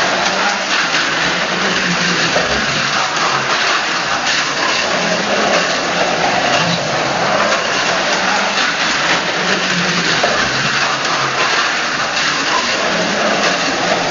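Carrera Go 1/43 scale slot car running laps at high speed on a plastic track: a steady, loud electric-motor whir with rattle from the car in the slot, swelling and fading every second or so as the car comes round.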